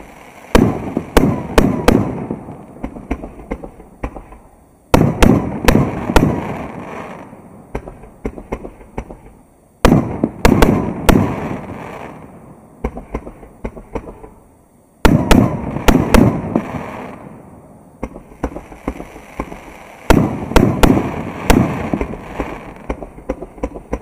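A 3-inch, 88-shot firework cake firing: clusters of sharp shell bursts start about every five seconds, and each cluster trails off over a few seconds.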